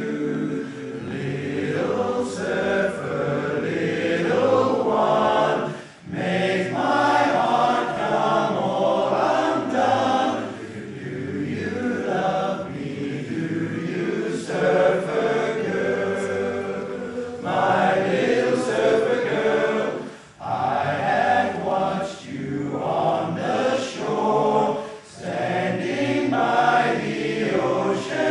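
Men's barbershop chorus singing a cappella in close harmony, with brief breaths between phrases, the clearest about six seconds in and about twenty seconds in.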